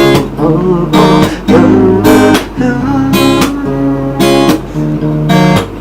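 Acoustic guitar strummed, one chord struck about once a second and left to ring.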